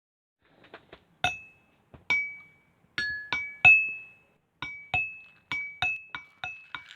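A series of sharp clinking strikes, each ringing on as one clear high tone that fades, at a few different pitches. A few faint taps come first, then about a dozen strikes that get quicker toward the end.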